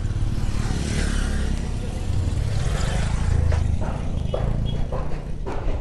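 Low rumble of a passing motor vehicle, swelling about three seconds in, with scattered short knocks.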